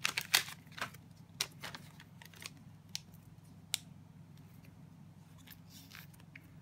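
Thin clear plastic card sleeve crinkling and crackling as a trading card is worked into it, a quick run of short crackles at first that thins out after a few seconds. A faint steady low hum runs underneath.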